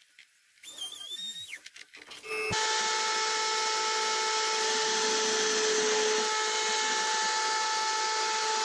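A homemade table-mounted scroll saw starts up about two and a half seconds in and runs steadily with a constant motor whine as its blade cuts a plywood frame. Before that there are faint handling sounds.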